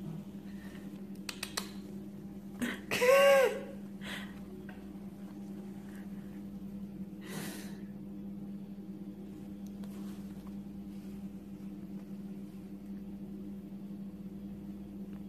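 Snap fasteners on a jacket pocket click open, then a short high-pitched vocal call rises and falls just after three seconds. A brief breathy burst comes later. A steady low hum runs underneath.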